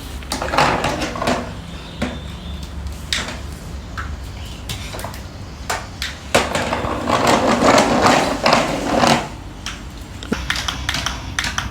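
Small plastic toys clattering and scraping, with scattered clicks and knocks and two longer stretches of rattling, one near the start and a louder one from about six to nine seconds in.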